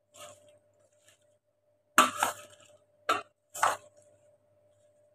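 Raw mango pieces being stirred in a stainless steel bowl, giving a few sharp clinks and knocks against the steel, the loudest about two seconds in. A faint steady hum runs underneath.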